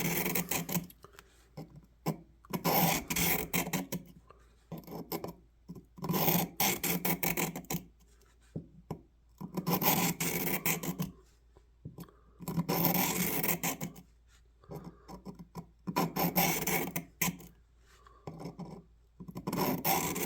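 Steel knife blade drawn across the coarse 400-grit plate of a Work Sharp Pocket Knife Sharpener at a guided 25-degree angle: slow, separate rasping sharpening strokes, about one every two to three seconds, with short quiet pauses between them.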